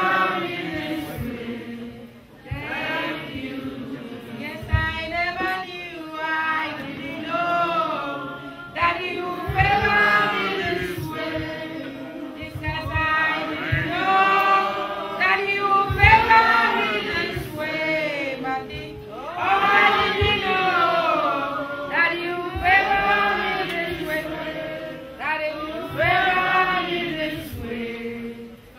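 A woman singing into a microphone, with other voices singing along in long, drawn-out phrases.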